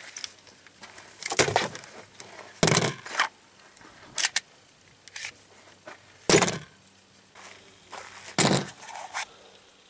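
Gun-handling noise: about six sharp knocks and clatters a second or two apart, as a rifle is unslung and the rifle, a Glock pistol and a magazine are set down on a hard plastic folding table.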